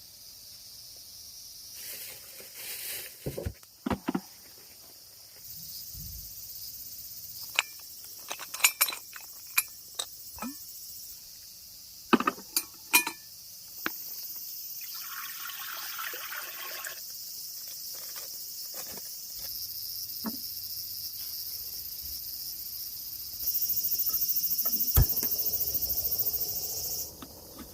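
Crickets and other autumn insects chirring in a steady high-pitched chorus, louder for a few seconds near the end, with scattered sharp clicks and knocks.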